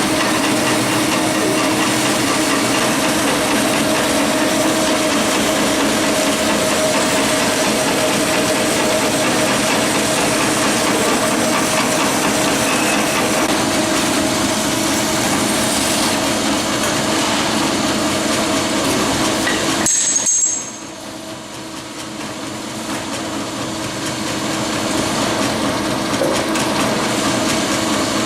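Automatic metal-cutting band saw machine running with a steady mechanical hum. About twenty seconds in it drops sharply in level, then builds back up over the next few seconds.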